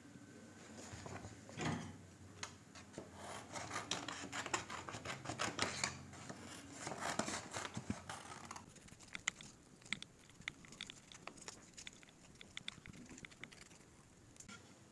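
A sheet of drawing paper rustling and crackling as it is handled and turned, then scissors snipping through the paper in a run of short, sharp cuts over the second half.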